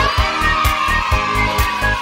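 Background music with a steady drum beat and a held, wavering high note over it.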